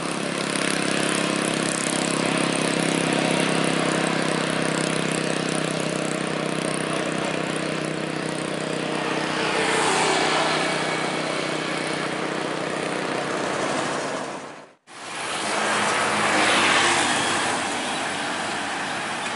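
Coach bus's diesel engine running as it approaches and passes on the highway, with tyre and road noise swelling as it goes by about ten seconds in. After a sudden break in the sound, more road traffic passes.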